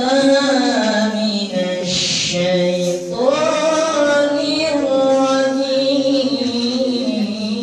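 A man's voice chanting Islamic devotional verses unaccompanied into a microphone, with long held notes bending up and down and ornamented runs.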